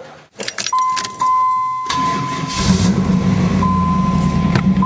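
Keys jangle, then a steady electronic warning chime comes on. About two seconds in, the starter cranks and the Camaro's LT1 small-block V8 catches and runs at a steady idle, the first start after the rebuilt 4L60E transmission went back in.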